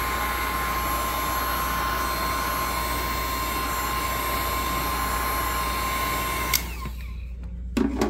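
Wagner heat gun running on its high setting: a steady fan-and-heater hiss with a thin steady whine, cut off with a click about six and a half seconds in. A short knock near the end.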